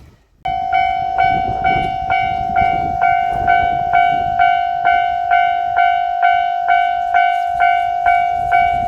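Japanese level-crossing warning bell (fumikiri) starting up about half a second in and ringing steadily, a bit over two strokes a second: the signal that a train is approaching and the crossing is closing.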